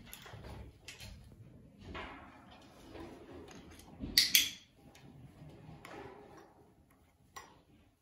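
Macaw moving about on a driftwood perch: scrapes and knocks of beak and feet on wood, with a sharp double clack about four seconds in.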